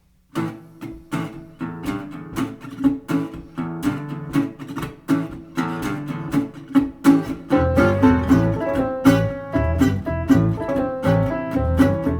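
Acoustic guitar playing an instrumental blues intro of picked notes, starting suddenly. About halfway through, deeper bass notes come in and the playing grows fuller.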